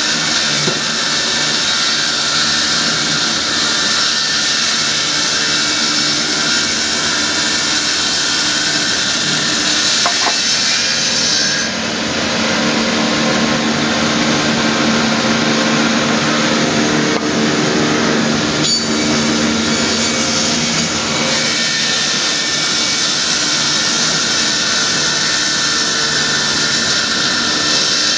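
Multi-blade rip saw running at speed: a loud, steady whir of its motors and spinning saw blades. About twelve seconds in, the highest hiss drops away and a lower hum comes forward.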